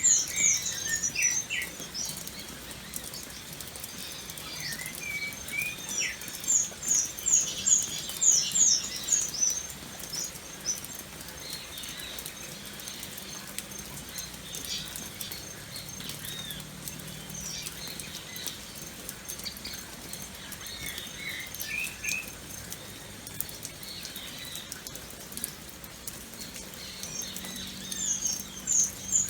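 Steady rain pattering, with birds chirping over it in quick runs of high, falling notes near the start, around seven to nine seconds in, and again near the end.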